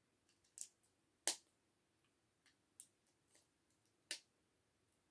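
LEGO plastic bricks and plates clicking as they are pressed together by hand: four sharp clicks, the loudest about a second in, with fainter ticks of pieces being handled between.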